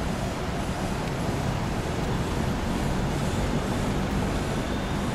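Steady city street traffic: a continuous rumble of cars on the road, with no single standout event.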